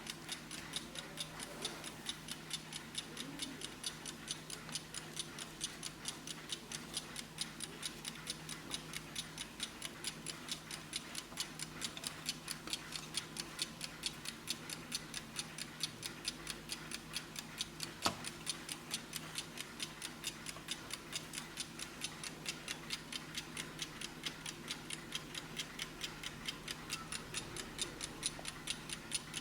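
Vintage Blessing chrome pedestal alarm clock ticking steadily, an even fast rhythm of sharp mechanical ticks. There is one louder click about eighteen seconds in.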